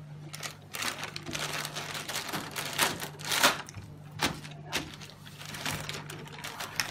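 Irregular rustling and clicking of plastic packaging and small plastic parts being handled, strongest about three and a half seconds in, over a steady low hum.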